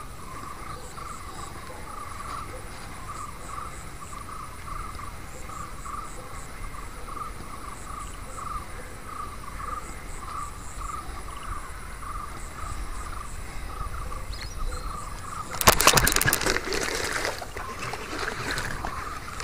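A frog calling in short, evenly spaced notes about twice a second, with faint insect chirps higher up. Near the end comes a loud, ragged splashing burst lasting a couple of seconds, a hooked snakehead thrashing at the water's surface.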